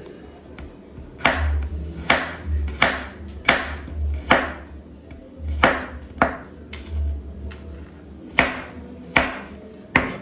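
Kitchen knife slicing garlic cloves into thin slivers on a cutting board: about ten slow, unevenly spaced sharp knocks of the blade on the board, with dull low thuds between some of them.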